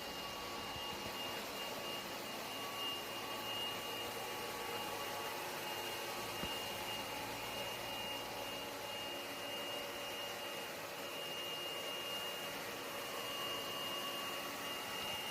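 Lefant M1 robot vacuum cleaner running: a steady whirring hiss with a thin, steady high whine over it.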